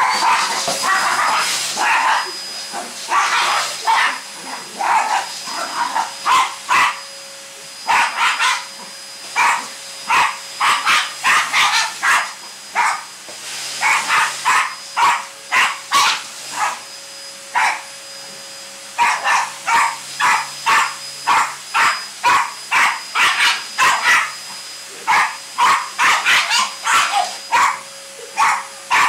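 Yorkshire terrier barking in rapid, repeated runs at a running canister vacuum cleaner, whose motor whines steadily under the barks. The barking stops briefly twice.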